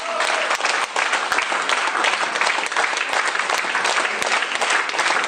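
Audience applause in a hall: many people clapping at once in a dense, steady patter.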